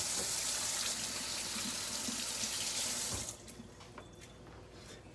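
Kitchen faucet running into a stainless-steel sink while hands are rinsed under the stream. The water is shut off a little over three seconds in, leaving a few faint clicks.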